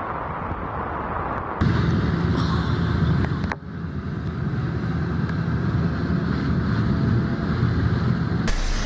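Steady outdoor rushing noise with wind buffeting the microphone, cut off abruptly and replaced by similar noise about one and a half seconds in, again near four seconds, and near the end.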